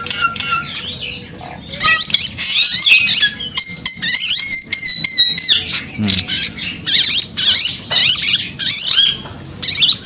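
Small songbirds calling and chirping throughout, in quick sweeping notes, with a high trilled phrase lasting about two seconds starting about three and a half seconds in.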